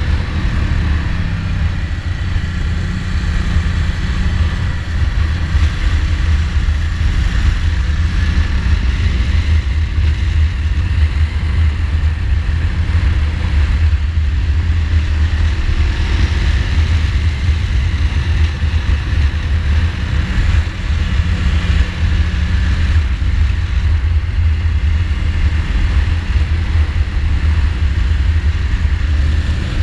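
2015 Ducati Multistrada's L-twin engine running at road speed, its note rising and falling a little, under a steady, heavy low rumble of wind and road noise.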